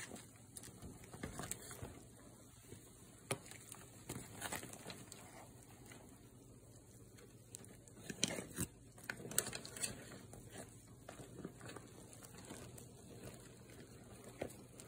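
Pot of seafood boiling, a low bubbling with scattered clicks and a few knocks as the shells are moved around in it, the knocks clustering about halfway through.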